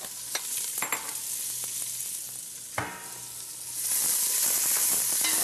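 Sliced onions sizzling as they fry in hot oil with whole spices in a steel pot. The hiss swells louder near the end, and a few sharp knocks from stirring come through it.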